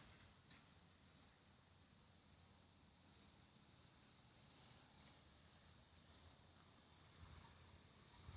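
Near silence with faint, high insect chirping: a thin steady tone with regular pulses on it, typical of a cricket.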